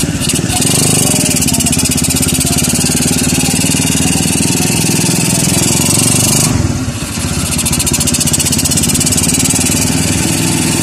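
Motorcycle engine of a tricycle (motorcycle with sidecar) running under way, heard from inside the sidecar, with a steady rapid firing pulse. The engine note changes and dips briefly about six and a half seconds in.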